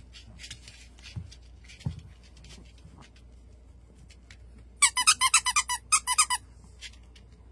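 A squeaky toy squeaked by a small dog chewing on it: about ten quick, high-pitched squeaks in two short runs, starting about five seconds in.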